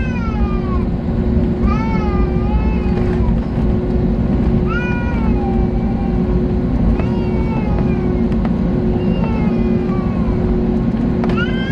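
Cabin sound of an Airbus A320-family airliner rolling out on the runway after touchdown: a steady engine drone and heavy rumble. Over it comes a high squealing call that falls in pitch, about five times at intervals of roughly two seconds.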